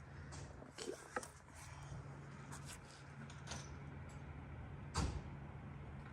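A few scattered light clicks and knocks, with one sharper knock about five seconds in, over a faint low steady hum.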